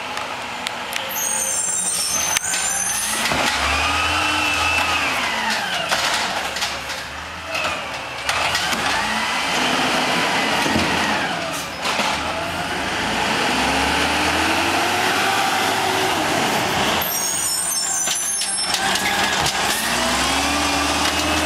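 LNG Peterbilt garbage truck with an Amrep automated side loader, its engine pitch rising and falling about four times as it pulls ahead and slows, with short air-brake hisses in between.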